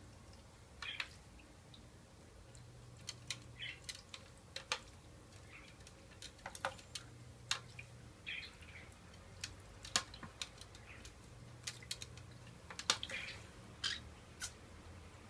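Water dripping and splashing in a small electric pet water fountain as a green-cheeked conure dips into it, heard as many sharp irregular clicks and a few short splashes over the pump's steady low hum.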